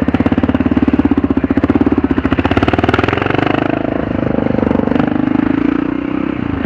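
Single-cylinder engine of a 2003 Kawasaki KLR650 dual-sport motorcycle running, a steady, even beat of firing pulses. Its pitch lifts a little about two to three seconds in, then eases back.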